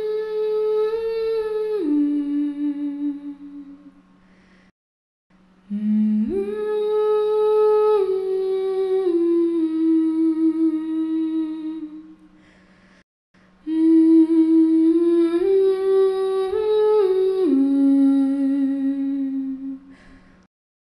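A slow melody hummed in long held notes that step down in pitch, in three phrases with short breaks between them, over a low steady drone.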